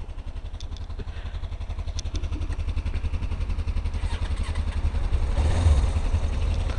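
Sport motorcycle engine running with a rapid low pulse, growing steadily louder as the bike moves off and loudest near the end.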